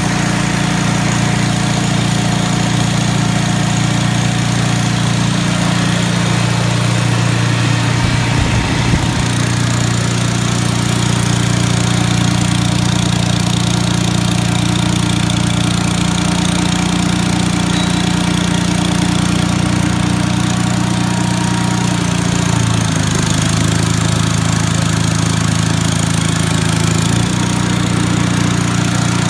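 Onan W2C generator's engine running steadily on its first run after a rebuild, its carburetor not yet tuned. Its pitch shifts about 8 seconds in, sags about three-quarters of the way through and picks back up near the end: the engine speed is not holding steady.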